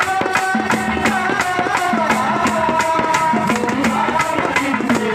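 Live Telugu folk-devotional song: a woman's amplified voice singing long, gliding held notes over a quick, steady percussion beat with a repeated low drum note.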